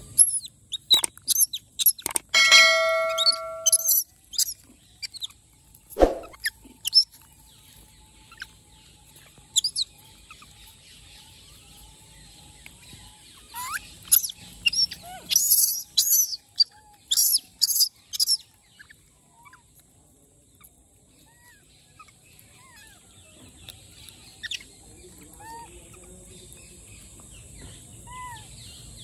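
Baby rhesus macaques calling in short, high squeaks and squeals, bunched near the start and again around the middle, with one longer held call about two and a half seconds in. Softer bird chirps follow over a steady high-pitched hum.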